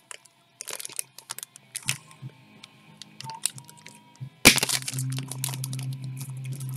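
Cards and plastic packaging being handled: scattered crinkles and clicks, with one sharp crack about four and a half seconds in, after which a steady low hum sets in.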